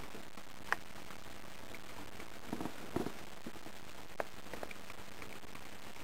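Cat eagerly eating jelly-type wet food from a bowl: irregular small wet smacks and clicks of chewing and licking, a small cluster about halfway through, over a steady hiss.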